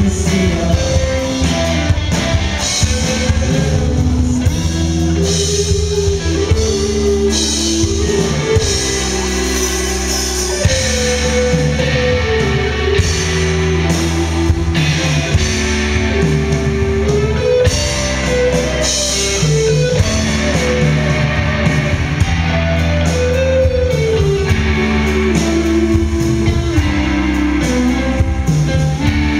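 Live rock band playing: electric guitars over a drum kit, with a melodic line weaving over a steady low end and cymbals.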